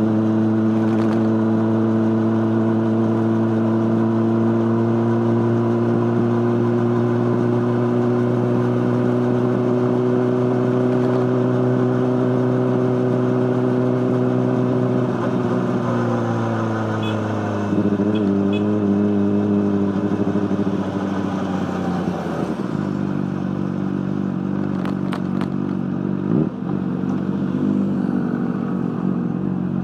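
Honda CBR600RR inline-four engine running through an Akrapovic exhaust. Its pitch holds steady with a slight rise for about fifteen seconds, then falls in steps over the next several seconds and settles at a lower, steady note.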